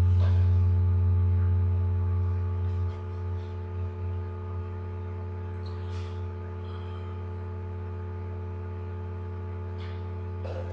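A steady low hum with a series of higher overtones, louder for the first couple of seconds and then settling to an even level. A few faint ticks come around the middle and again near the end.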